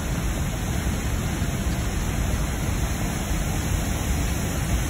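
Steady rushing noise with a heavy low rumble and no distinct events.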